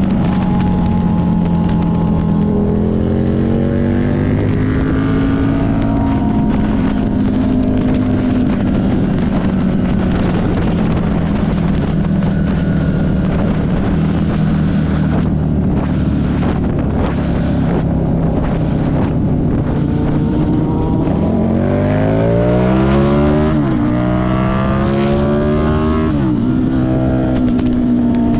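Buell 1125CR's liquid-cooled V-twin engine under way, running at fairly steady revs for most of the time. About three-quarters through it accelerates hard, the revs climbing steeply and dropping back sharply at two upshifts before settling again.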